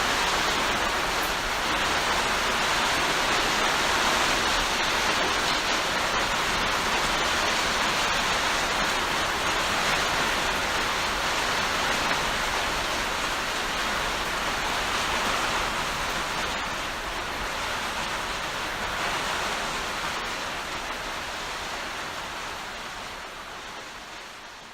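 Heavy rain pouring down steadily in a dense, even hiss, gradually fading out near the end.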